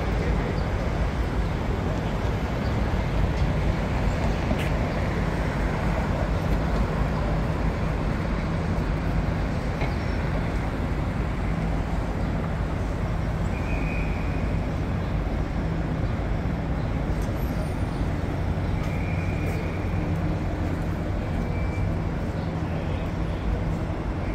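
Downtown street traffic: a steady hum of vehicle engines and road noise. A few brief high-pitched squeals come through around the middle and later on.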